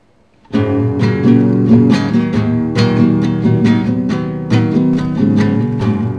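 Acoustic guitar strumming chords in a steady rhythm, coming in about half a second in.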